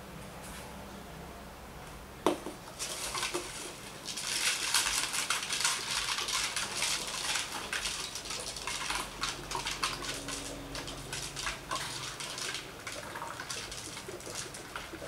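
Homemade plastic-bottle water clock (clepsydra): a knock about two seconds in, then water splashing and trickling down through the neck connector into the lower bottle, with many small clicks from the beads tumbling against the plastic.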